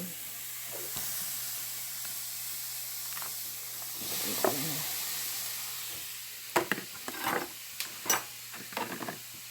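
Chopped mushrooms, pepper and ham sizzling in a frying pan, a steady frying hiss. In the last few seconds a utensil stirs the food, with a quick series of scrapes and taps against the pan.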